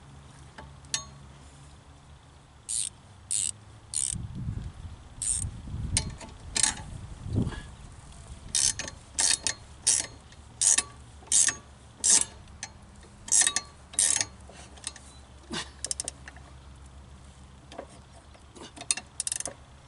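Hand ratchet wrench clicking in repeated short strokes, about two a second, tightening the lawn mower's blade bolt, with a few dull knocks of metal parts before it.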